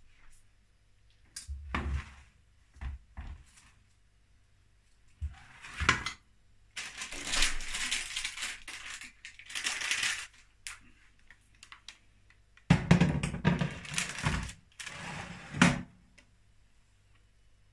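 A metal baking tray clattering and scraping as it is handled and slid into an oven. Scattered knocks come first, then a few seconds of scraping, and the loudest clatter of metal on metal comes near the end.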